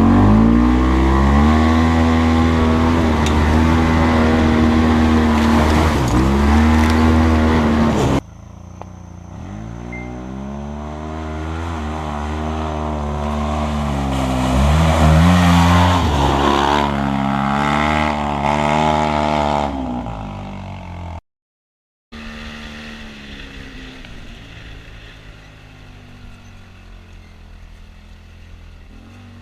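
Off-road vehicle engine running hard, its pitch rising and falling with the throttle. The sound breaks off abruptly about eight seconds in and again for a second of silence later on, after which the engine is quieter.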